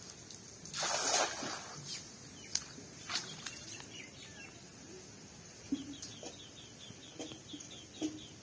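A cast net splashes down onto pond water about a second in, the loudest sound. A couple of sharp ticks follow, then a bird chirping in a quick run of short repeated notes through the second half.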